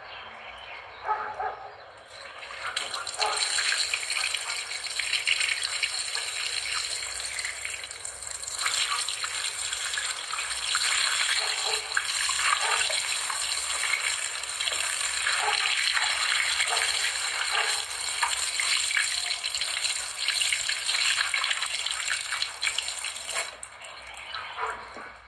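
Heavy rain hissing steadily on a tiled terrace. It starts abruptly about two seconds in and dies down shortly before the end.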